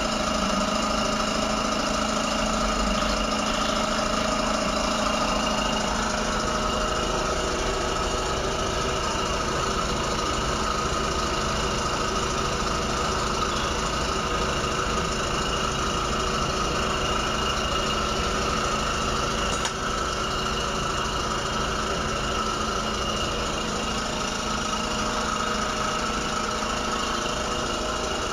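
Dental suction unit running with a steady motor hum.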